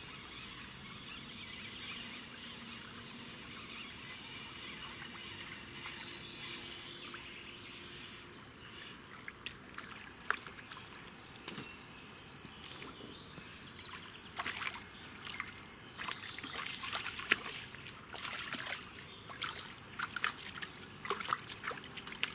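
Irregular splashing and sloshing of water from about nine seconds in, as a hooked small bream thrashes at the surface while it is brought in on a feeder rod. Before that only a steady faint hiss.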